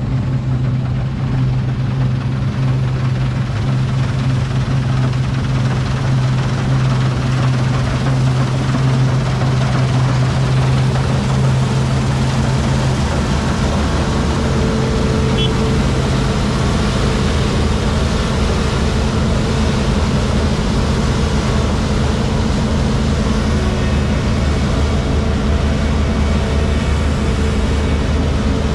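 Combine harvester running steadily while harvesting wheat. About 13 seconds in, its hum drops to a lower pitch.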